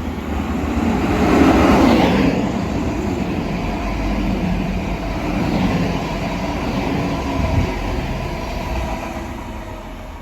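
A train passing through a station, its noise building to a peak about two seconds in, then running on steadily and fading near the end.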